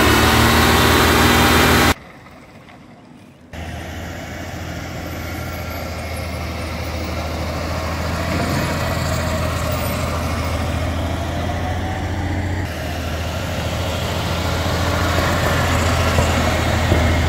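Diesel-truck-sized engine of an International rollback tow truck running on compressed natural gas, idling with a steady low hum. It cuts out abruptly about two seconds in, returns a second and a half later, and grows gradually louder toward the end.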